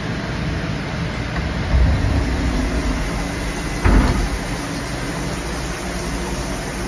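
ANCA FX7 CNC tool grinder running, a steady machine noise with coolant oil spraying and hissing. A louder stretch comes about two seconds in, and a single sharp clunk just before the fourth second.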